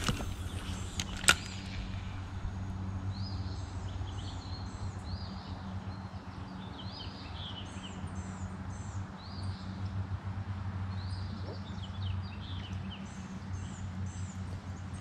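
Small birds chirping again and again in short phrases, over a steady low hum. Two sharp clicks sound in the first second and a half.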